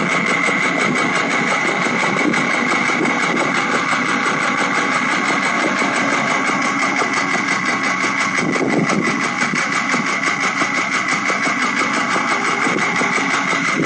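Porsche 996 Carrera 4's 3.6-litre flat-six running with a rapid, even ticking knock over a steady whine. This is the abnormal noise of an internally failed engine that needed a short-block replacement.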